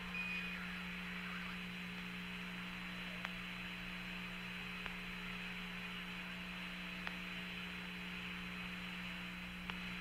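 Open air-to-ground radio channel with no one talking: steady hiss and hum, a few faint clicks, and a short beep at the very start, the Quindar tone that keys Mission Control's transmitter.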